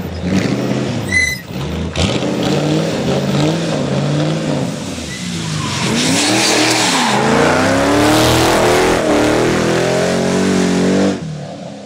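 Rally cars passing one after another at full throttle, engines revving hard up and down through the gears, with tyre squeal. The first is a Ford Mustang rally car. The sound changes abruptly about two seconds in, and drops off near the end.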